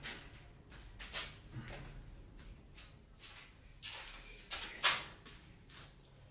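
Scattered light clicks and knocks of workshop handling, with one sharper knock about five seconds in.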